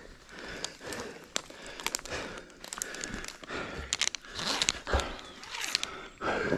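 Footsteps with rustling of leaves and undergrowth on muddy, slippery rainforest ground, in an irregular run of short crackles and clicks.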